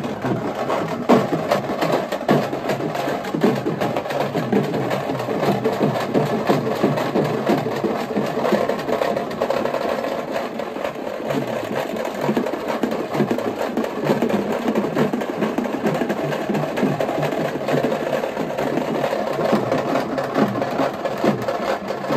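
Rapid, steady drumming, a dense run of sharp strikes that keeps going without a break.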